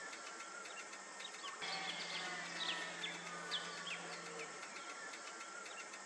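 Faint outdoor ambience of birds chirping in short quick calls over a steady buzz of insects, with a low hum that stops and starts again about a second and a half in.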